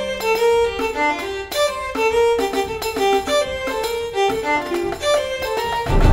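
Background music led by a fiddle playing a quick melody of short notes, with a louder, fuller passage coming in right at the end.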